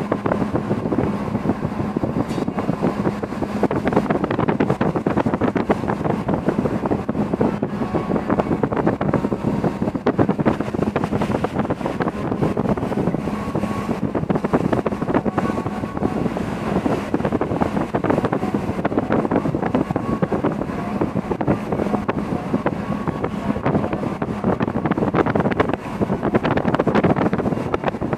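Wind buffeting the microphone over the rush and wash of sea water along the hull and across the low side deck of a deep-laden cargo ship under way, with a steady low hum underneath.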